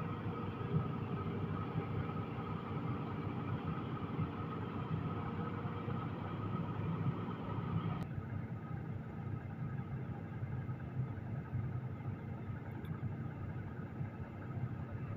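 Amphibious excavator's diesel engine running steadily, a low rumble with a few steady whining tones above it, as it works at recovering a dump truck stuck in mud. The upper hiss of the sound drops away suddenly about eight seconds in.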